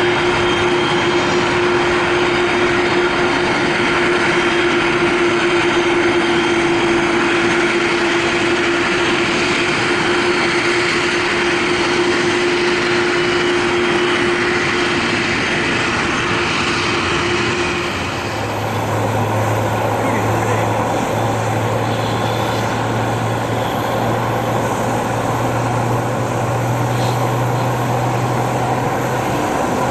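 Jet engines of a Boeing 747-400 freighter taxiing: a steady whine with a held tone over a rushing hiss. About two-thirds of the way in the sound changes abruptly, and the tone gives way to a low steady hum.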